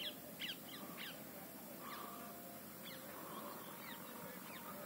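Birds chirping faintly: short calls that fall in pitch, often two or three in quick succession, scattered across a few seconds.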